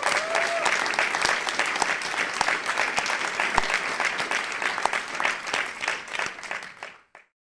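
Audience applauding, a dense spatter of many hands clapping, which cuts off abruptly near the end.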